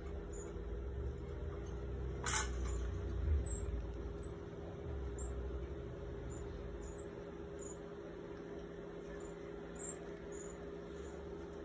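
Geoffroy's marmoset giving short, high-pitched chirps, about a dozen spaced irregularly, over a low rumble and a steady hum. A single sharp click comes about two seconds in.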